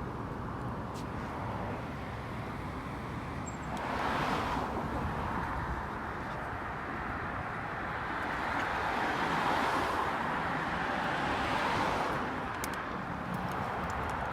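Road traffic: a steady hum of traffic with vehicles passing, one about four seconds in and a longer swell from about eight to twelve seconds.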